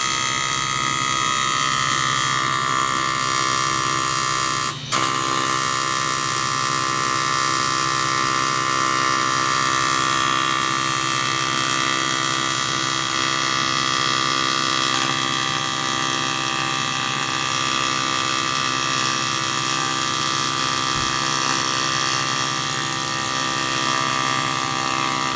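A shop power tool or machine running steadily with a high whine, cutting out for an instant about five seconds in.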